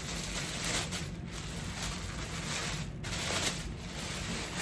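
Tissue paper rustling as hands dig through a packed box, in irregular crinkles and scrapes.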